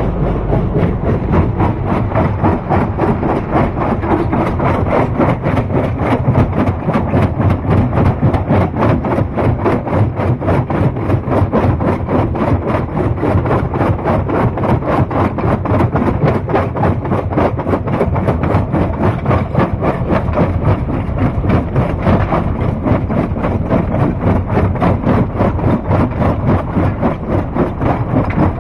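Heavy rock-crushing machinery running steadily, with a fast, even, rhythmic pulsing throughout.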